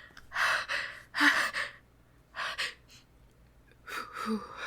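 A woman's breathy gasps, four in a row about a second apart, the second the loudest, with a small voiced catch in the last one. These are the hitching breaths of a sneeze building while she holds it back.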